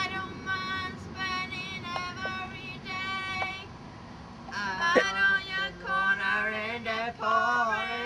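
A young woman singing out loud, unaccompanied, in drawn-out, wavering phrases with short breaks between them.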